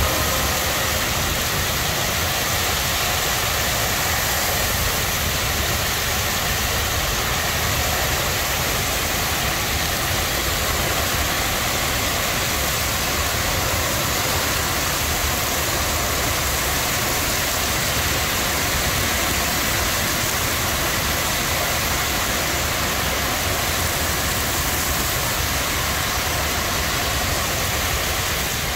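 Torrential rain pouring down in a heavy thunderstorm: a dense, steady hiss that holds at one level throughout.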